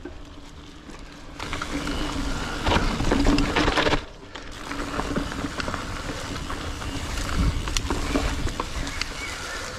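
Mountain bike being ridden along a dirt trail: tyre noise with scattered clicks and rattles. It gets louder about a second and a half in and drops off briefly around four seconds.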